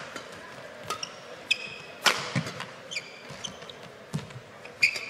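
Badminton rally: rackets strike the shuttlecock with a sharp crack every second or so, and players' shoes squeak on the court mat between shots.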